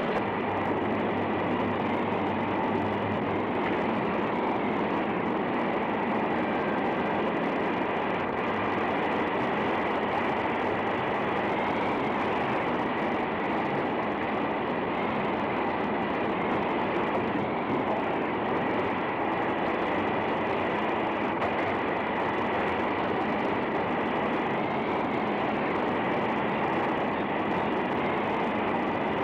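Steam hissing steadily from a boiler room's pipes and valves: a continuous rushing noise with a faint high whistle running through it.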